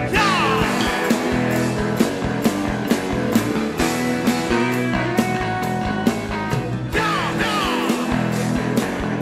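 Live rock band playing, with drums keeping a steady beat under electric guitar. The guitar glides down in pitch twice, at the start and again about seven seconds in.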